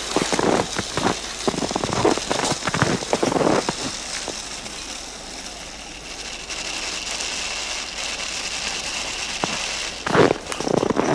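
Snow crunching and crackling in irregular bursts as a toy train ploughs through deep drifts. The bursts ease off in the middle to a steady hiss with a faint high whine, then return near the end.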